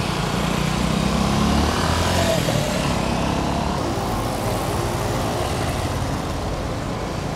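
Street ambience: traffic noise with a motor vehicle engine running close by, strongest in the first two or three seconds, then a steadier background hum.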